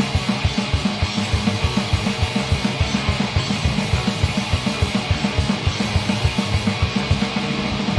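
Heavy metal band playing live: distorted electric guitars and bass over a fast, steady kick-drum beat, with no vocals.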